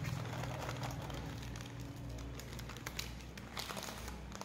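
A dog chewing a biscuit: scattered crisp crunching clicks, a few sharper ones about three seconds in, over a steady low hum.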